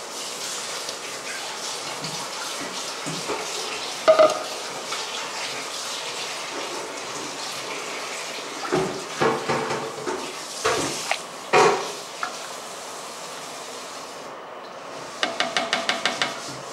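Beef broth boiling in a large aluminium pot as rice is poured in, bubbling steadily, then a spoon stirring and knocking against the pot. A ringing knock about four seconds in, several more knocks a few seconds later, and near the end a quick run of about six taps on the pot.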